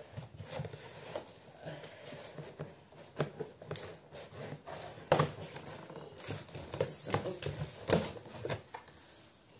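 Cardboard gift carton being cut open with scissors and handled: irregular snips, clicks and knocks with rustling packaging.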